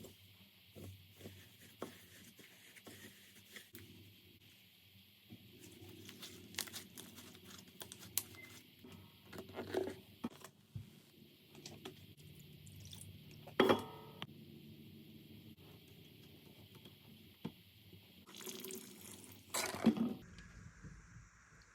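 Slime being squeezed and poked by hand: many small wet, sticky clicks, with a few louder squelches about halfway through and near the end.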